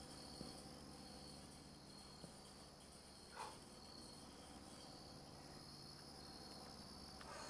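Faint, steady chirring of crickets, with a couple of faint clicks and one brief, slightly louder blip a little over three seconds in.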